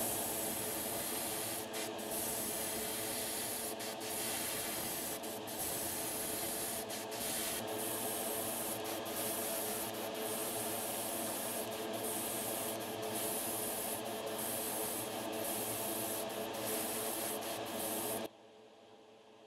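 Airbrush spraying paint in a steady hiss, broken by many brief pauses as the trigger is let off, stopping suddenly near the end. A steady hum runs underneath and carries on faintly after the spraying stops.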